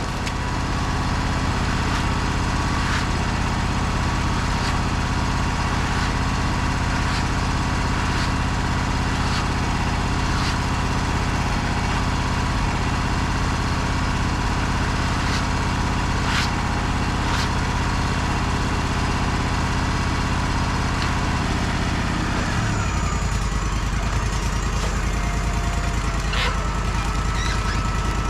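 Wood-Mizer LT35 sawmill engine running steadily. About 22 seconds in, it drops in speed to a lower, even idle.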